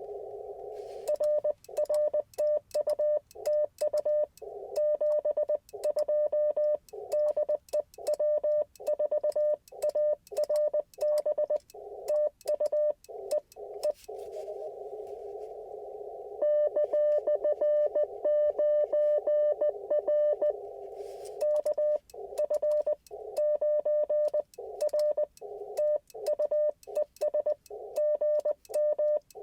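Morse code (CW) on an Icom IC-705 ham radio: a single high beeping tone keyed in quick dots and dashes, with crisp clicks on each keying. Twice the keying stops and the steady hiss of the receiver, heard through its narrow CW filter, fills the gap.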